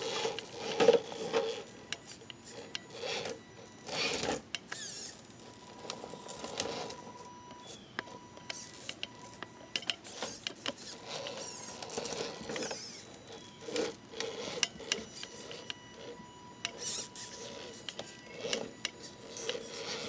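Radio-controlled rock crawler's small electric motor and gears whirring in short stop-start bursts as it crawls over rocks, with its tyres and chassis scraping and rubbing on stone.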